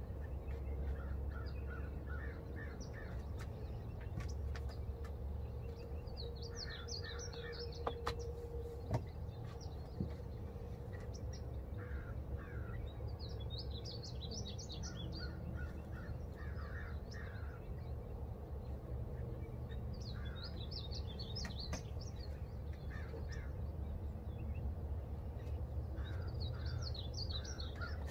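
A songbird singing a short phrase of rapid high chirps, repeated about every seven seconds, over a steady low background rumble.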